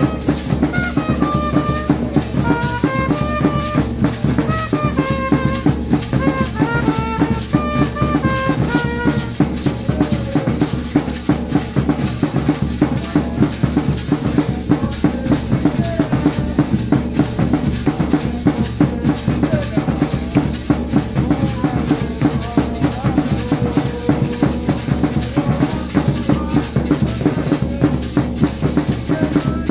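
Live drum-and-brass band: several large double-headed drums beaten with sticks in a fast, steady beat. For the first nine seconds or so a brass instrument plays a stepped melody over the drums; after that the drums carry on mostly alone.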